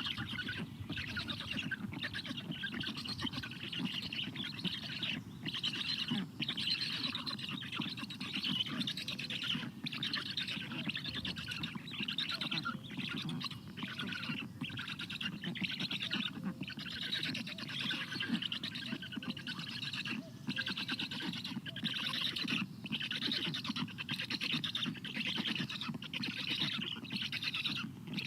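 Black stork nestlings begging on the nest: a near-continuous hoarse chorus of calls broken by short pauses, over a steady low rumble.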